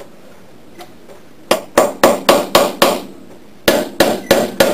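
Small hammer tapping a steel roll pin into the output shaft of an AndyMark Toughbox gearbox, about four sharp strikes a second. A run of six strikes starts about a second and a half in, then after a short pause the hammering picks up again near the end.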